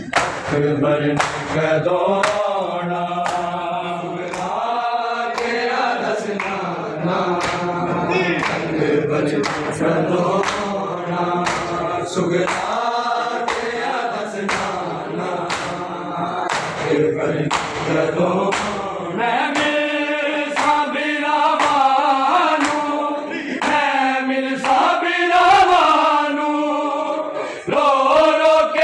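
Crowd of men chanting a noha together, kept in time by a steady beat of open-hand slaps on bare chests (matam).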